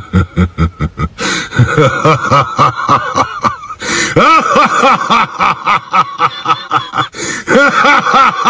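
A man's long, loud laughter: quick 'ha' pulses, about four or five a second, each rising and falling in pitch, with brief breaks for breath.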